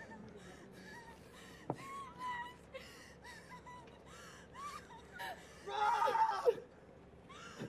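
A young woman crying in distress: gasping, sobbing breaths and wavering cries that swell into a loud wail about six seconds in.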